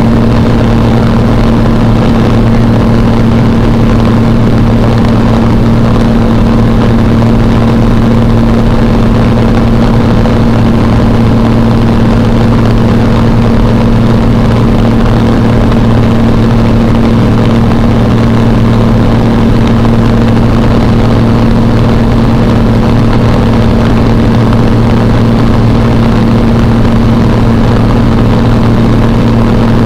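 Single-engine propeller airplane's engine and propeller droning steadily at an even cruise setting, heard from inside the cockpit.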